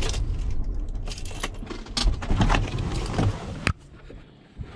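Ford van's engine running in the cab as it pulls up, with clicks and a jangle of keys. The engine sound stops with a sharp click about three-quarters of the way through.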